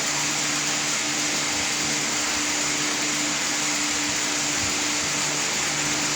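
Steady rushing, hissing air noise with a faint low hum, from a running motor-driven air mover such as an electric fan.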